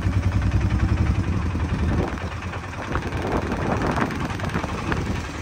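Auto-rickshaw engine running steadily as it drives along, easing off about two seconds in.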